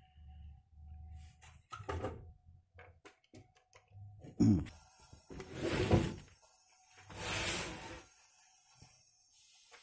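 A CRT television being plugged in and switched on. First come small clicks of the plug going into the socket. About four seconds in, a sudden thump with a short falling hum marks the set powering up, and a faint high-pitched whine begins. Two swells of hiss follow.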